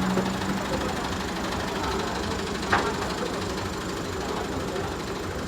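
A machine running with a steady rapid rattle, with one sharp click about two and a half seconds in.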